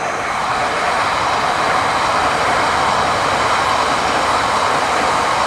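Yamagata Shinkansen train passing close by: a loud, steady rushing noise that holds at full strength.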